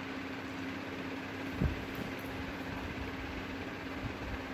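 A steady hum with one steady tone running through it, and a single dull thump about one and a half seconds in.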